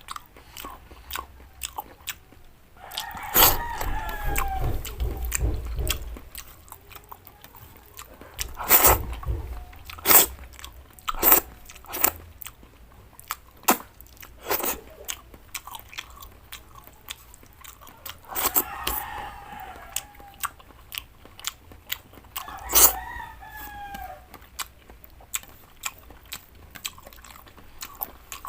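Close-miked chewing and crunching of mouthfuls of vegetables, with many sharp mouth clicks and bites. A rooster crows twice in the background, about 3 seconds in and again about 18 seconds in.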